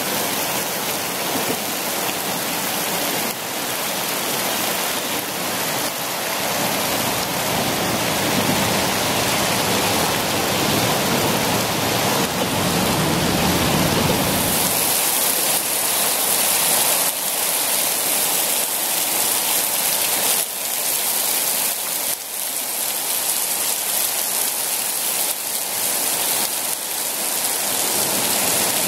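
Steady rushing noise under a highway overpass. The lower rumble drops away about halfway through, leaving a brighter hiss.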